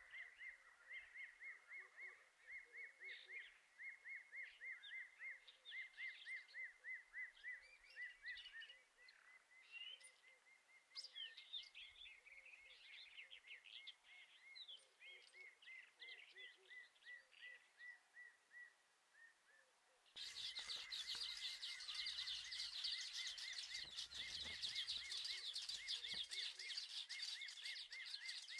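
Quiet outdoor ambience: birds chirping, over a steady short call that repeats about four times a second. About two-thirds of the way through, the sound changes abruptly to a louder, steady high hiss with a few low rumbles.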